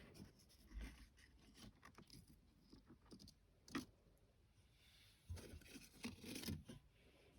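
Faint rustling and scratching of leaves being handled, with small scattered clicks and a busier stretch about five to six and a half seconds in.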